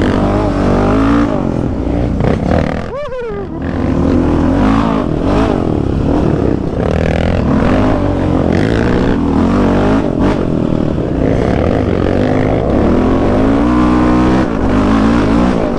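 Yamaha Raptor 700's single-cylinder engine with a full aftermarket exhaust, revving up and down repeatedly as the quad is ridden hard. It briefly drops off throttle about three seconds in, then climbs again.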